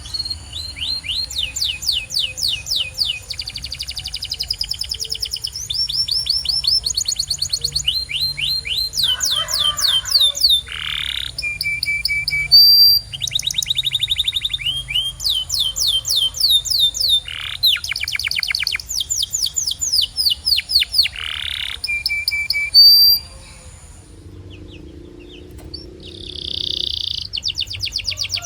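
Domestic canary singing: a long song of rapid trills, each phrase a fast run of the same high note repeated, some rising or falling. The song breaks off for a few seconds near the end, then starts again.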